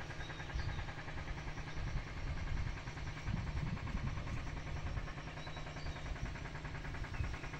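Wind rumbling unevenly on the microphone over a faint steady mechanical hum.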